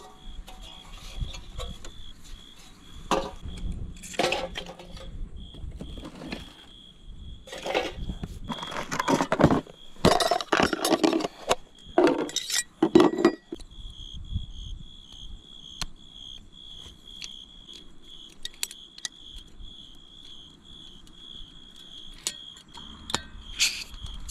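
Clatter and clinks of metal camp-stove parts and a plastic stove case being handled, the busiest stretch between about 3 and 13 seconds in. Throughout, night insects keep up a steady, high-pitched pulsing chirp.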